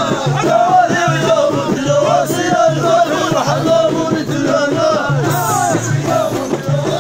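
Ahidous chant: a line of men singing together in many voices, a held low tone repeated in rhythmic phrases under the higher sung lines.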